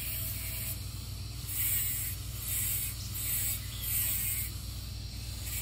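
Makita angle grinder with a thin cutting wheel grinding into a steel plate letter cutout. The grinding comes in repeated strokes roughly every two-thirds of a second over the steady run of the motor.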